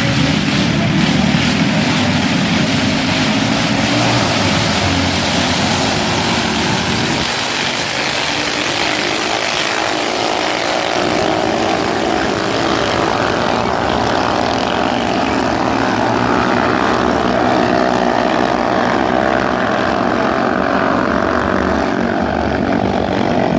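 Racing motorboat engines running hard in a continuous loud drone, the tone of which shifts higher about halfway through.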